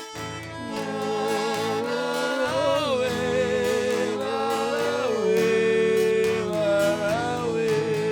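Caipira country music between sung verses: strummed strings under a sustained two-part melody that wavers in pitch and moves together in parallel.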